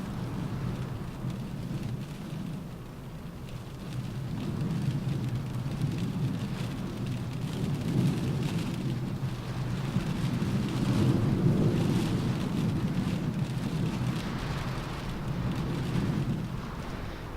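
Rain drumming on a car roof, scattered drops tapping over a low wind rumble that swells through the middle and eases near the end.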